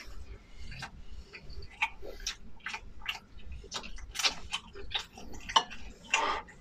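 Close-up eating sounds: a person chewing food, with irregular wet mouth smacks and clicks, a few louder ones about four and six seconds in.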